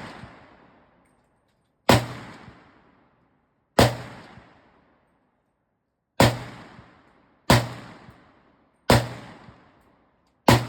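Six single gunshots at an uneven, deliberate pace, one to two and a half seconds apart, each a sharp crack followed by a trailing echo of about a second.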